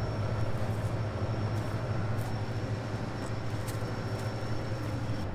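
Combine harvester running steadily at work: an even low engine drone with a faint high whine held over it.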